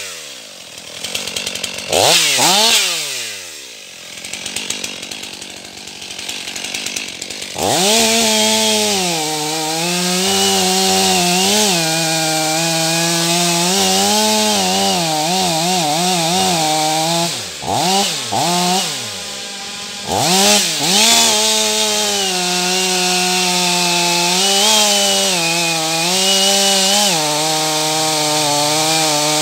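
Stihl MS 500i fuel-injected two-stroke chainsaw idling, revved once briefly about two seconds in. From about eight seconds in it runs at full throttle cutting into a larch, the engine pitch dipping under load and recovering a few times around the middle.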